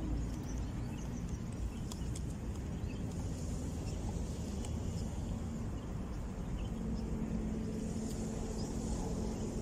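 Steady low outdoor rumble, with a faint steady hum joining it for the last two seconds or so.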